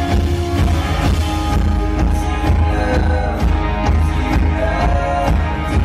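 Live rock band playing: electric and acoustic guitars over bass and a drum kit, with a steady beat.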